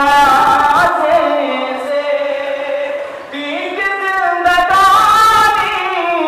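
A man's voice chanting Shia devotional poetry in pesh-khwani, the recited prelude to a majlis, as a slow melodic chant with long held notes that glide up and down. The voice dips briefly about three seconds in, then rises again.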